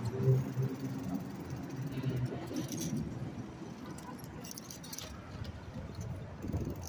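City street traffic: a vehicle engine hums low and steady for the first couple of seconds, over a constant street hiss. Light jingling and rattling, like keys or carried items shaken while walking, comes through about three seconds in.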